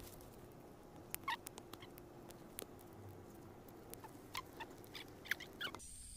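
Dry straw and grass burning, with irregular sharp crackles and pops over a faint steady rush of the flames.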